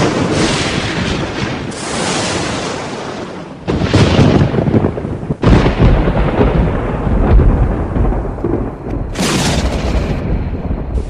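Loud thunder: a run of thunderclaps, each starting with a sudden crack and rolling into a long low rumble, with a new crash every two seconds or so and a sharp one near the end.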